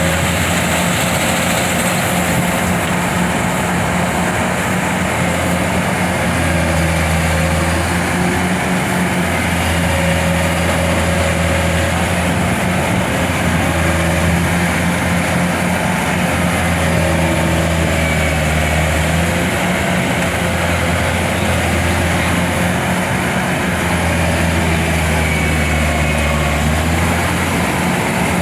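Kubota DC-105X combine harvester's diesel engine running steadily, its low hum swelling and easing every few seconds.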